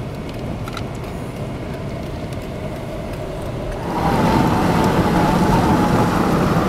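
Car interior noise while driving: steady engine and road rumble that gets louder about four seconds in, with a faint steady whine joining it.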